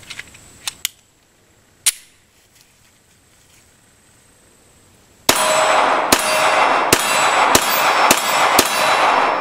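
Glock 43 9mm pistol fired six times in quick succession, starting about five seconds in, each shot about two-thirds of a second apart and echoing. Before it, a few light clicks from handling the gun.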